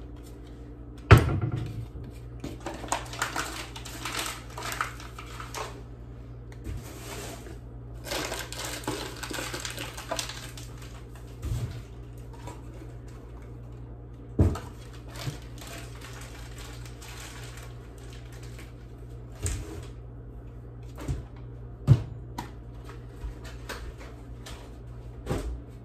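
Kitchen clatter while mixing cookie ingredients: a spoon stirring and scraping in a plastic bowl, with scattered knocks of dishes and utensils, the sharpest about a second in. A steady low hum runs underneath.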